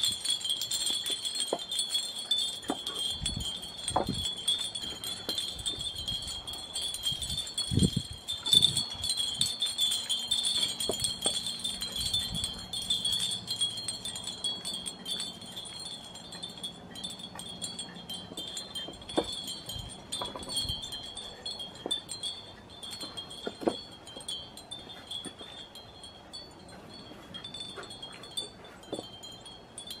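Many hanging wind chimes tinkling continuously in the breeze, a steady high ringing that eases off slightly toward the end. Scattered light wooden knocks from the boards of a cedar birdhouse being handled and fitted together, the loudest about eight seconds in.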